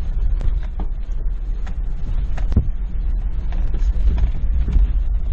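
Cabin noise of a 2021 Ford Bronco driving over rough off-road terrain: a steady low rumble with frequent creaks, clicks and knocks from the body and interior as it bounces.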